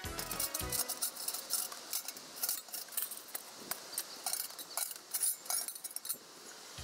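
Stainless-steel chimney pipe sections of a G-Stove wood stove clinking and scraping against each other and the stove body as they are pulled out of the firebox and set down: a string of light, irregular metallic clinks.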